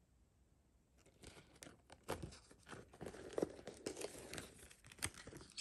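Paper hang tags and a folded tag leaflet on a sneaker rustling and crinkling as they are handled: a run of irregular crackles and rustles that starts about a second in.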